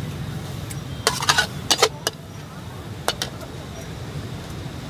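Metal spatula clanking and scraping against a steel wok during stir-frying: a quick cluster of strikes in the first two seconds and a couple more about three seconds in, over a steady low rushing noise.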